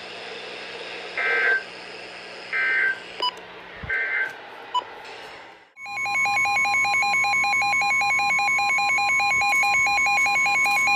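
Emergency Alert System data tones on NOAA Weather Radio: three short warbling bursts of end-of-message data, about a second apart, mark the end of the warning. About 6 seconds in, a steady alert tone starts, with a rapidly pulsing electronic beep over it, announcing the next warning.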